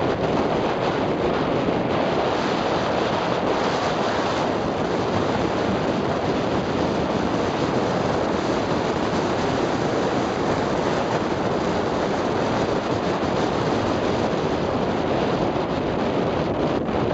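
Steady, loud wind rush over the microphone of a camera carried on a fast ski run, caused by the skier's own speed downhill.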